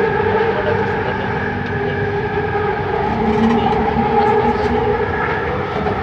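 Bombardier Innovia Metro 300 linear-induction-motor train running at speed, heard from inside the car: a steady running noise with several held whining tones.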